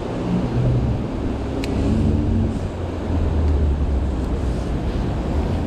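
Steady low rumble of city traffic, with wind buffeting the microphone and a single sharp click about a second and a half in.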